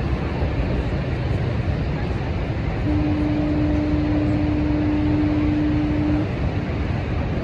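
Steady low roar of Niagara's Horseshoe Falls, with a single long horn blast of about three seconds starting about three seconds in.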